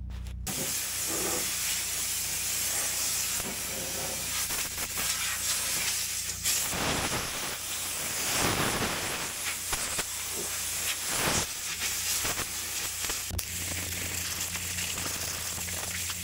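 Compressed air hissing from a blow gun on an air hose, blowing rust flakes and dirt off a rusted-out truck cab floor. The hiss starts about half a second in and swells and eases several times.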